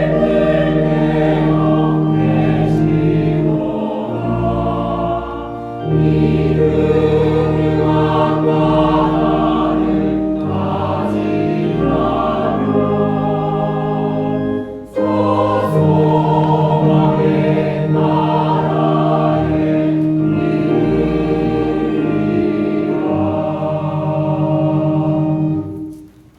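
Church choir singing a hymn with organ and piano accompaniment, long sustained low bass notes under the voices. The music fades out right at the end.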